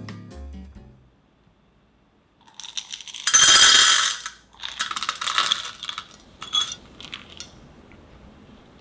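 Chocolate couverture callets poured from a glass jar, clattering into a saucepan. The first pour starts about two and a half seconds in and is the loudest, a second pour follows about a second later, and a few last pieces click in after.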